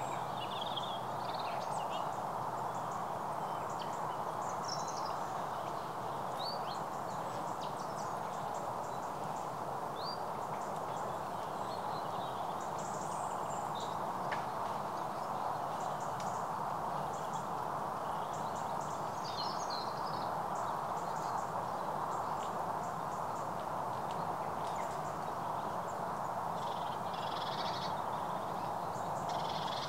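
Birds chirping now and then over a steady rushing noise.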